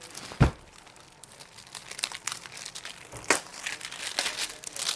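Clear plastic wrapping crinkling and rustling as it is pulled off a packaged suit-length of fabric, with a soft thump about half a second in.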